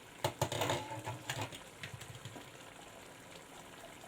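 Metal lid being lifted off a cooking pot: a cluster of clinks and clatters in the first second and a half, then a few lighter clicks.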